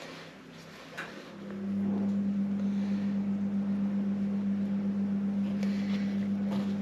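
A steady low hum starts about a second and a half in and holds one unchanging pitch.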